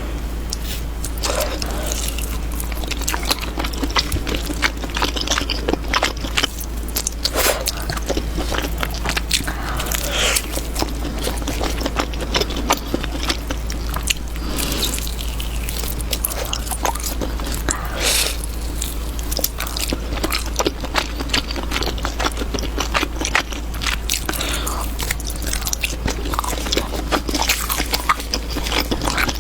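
A person eating soft, sticky food close to the microphone: irregular biting and chewing with many wet mouth clicks, over a steady low hum.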